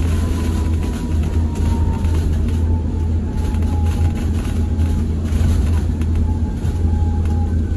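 Inside a BYD battery-electric Alexander Dennis Enviro200 bus on the move: a steady low rumble from the road and body, with the electric traction motor's thin whine slowly falling in pitch as the bus slows.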